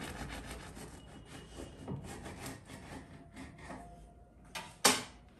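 A knife sawing back and forth through a freshly baked loaf with a crisp crust, a run of rasping strokes. A single sharp knock near the end.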